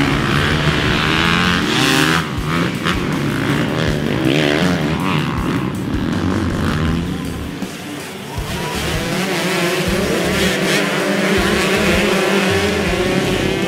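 Several off-road dirt bike engines revving up and down as the bikes accelerate and pass.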